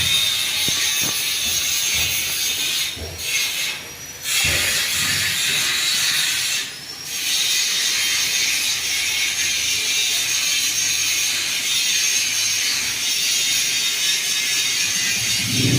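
Panasonic F-560Z2 industrial ceiling fan running: a steady high hiss with irregular low clicks in the first few seconds. The hiss dips briefly three times.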